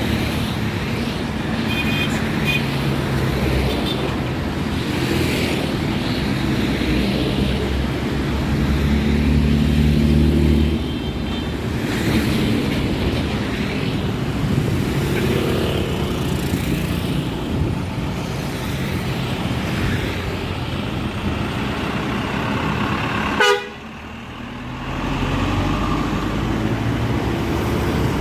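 Bus engines running close by with toots from 'telolet basuri' musical horns. About three-quarters of the way through there is a sharp click and a sudden drop in level, then an engine swells up again.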